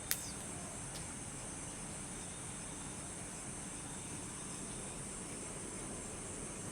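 Steady night-time nature ambience of light rain and wind with a constant high-pitched hiss, broken by one sharp click just after the start and a fainter one about a second in.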